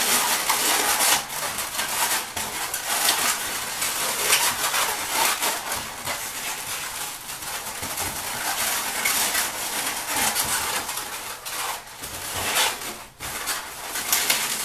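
Latex twisting balloons squeaking and rubbing against each other as balloon flower petals are shaped by hand, a continuous run of scratchy rubbing squeaks.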